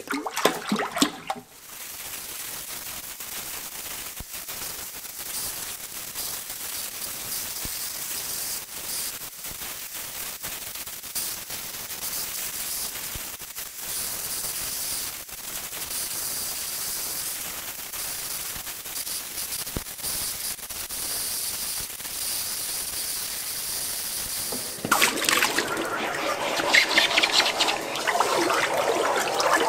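An oxy-propane torch flame hisses steadily while it heats a C45 steel hammer for hardening. About 25 s in, the hot hammer is plunged into a bucket of quench water and swirled, and the water churns and sloshes louder. Water also sloshes briefly at the very start, from the tail of the previous quench.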